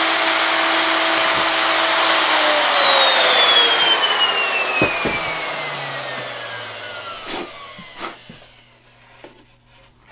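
Router with a straight bit running at full speed, switched off about two seconds in, its whine falling steadily in pitch and fading as the motor winds down over several seconds. A few light knocks come near the end.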